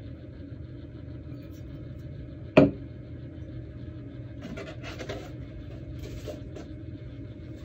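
Steel milk pitcher set down on a wooden tabletop: one sharp knock with a short metallic ring, about two and a half seconds in. A few seconds later comes a stretch of scraping and rustling as a cardboard box is slid off the table, all over a steady low hum.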